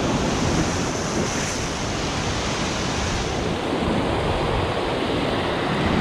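Heavy sea surf breaking and washing over shoreline rocks: a steady rush, with wind blowing on the microphone.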